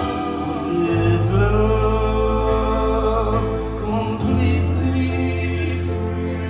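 Live rock band playing a slow song: a man singing over electric guitars, keyboards and long held bass notes, which change about a second in and again about four seconds in.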